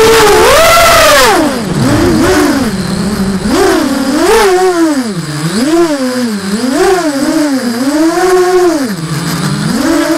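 Racing quadcopter's EMAX RS2205 2300 kV brushless motors with DAL 6045 props whining, the pitch swinging up and down again and again with the throttle. A loud hiss rides over the whine for about the first second and then cuts off.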